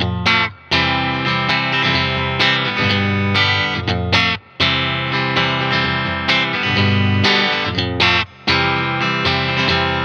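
S-style electric guitar strumming chords through an amp, in phrases broken by brief pauses about half a second, four and a half and eight and a half seconds in.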